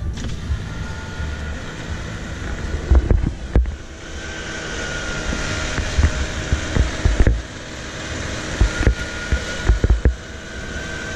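An 8.5 ft snowblower running steadily, with a high whine over its working noise and irregular low thumps.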